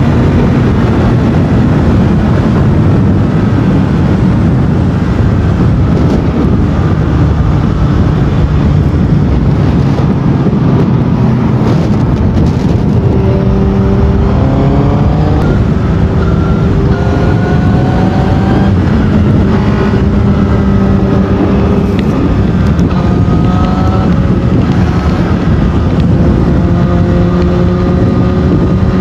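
Honda CBR1000RR Fireblade's inline-four engine on its stock exhaust at expressway speed, under heavy wind rush over the microphone. The engine note climbs in several rising pulls, each dropping back at a gear change.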